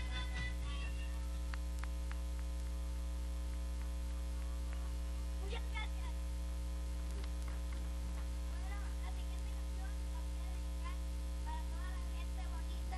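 Loud, steady electrical mains hum with a ladder of buzzing overtones. Faint wavering voices come and go beneath it, mostly in the second half.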